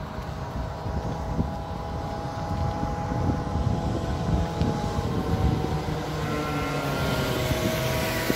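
Motor vehicles passing on the road alongside, their engine hum growing louder near the end, over a low irregular rumble of wind on the microphone.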